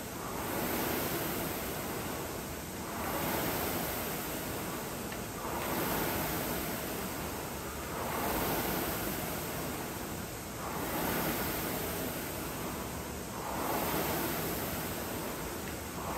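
Concept2 air rower's fan flywheel whooshing with each rowing stroke, a swell of rushing air about every two and a half seconds at a steady pace.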